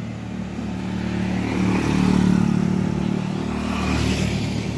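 A motorcycle passing by on the road, its engine note growing louder to a peak about two seconds in and then fading.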